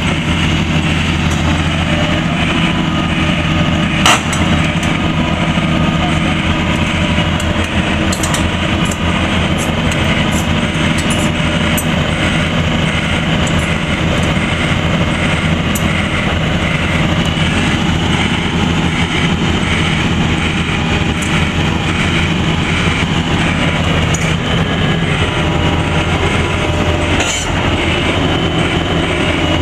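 Tracked excavator's diesel engine running steadily under load, with scattered knocks and clatter, the sharpest about four seconds in.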